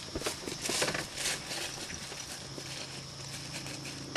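Soft footsteps swishing through long grass, a few light irregular steps in the first second and a half, then fainter.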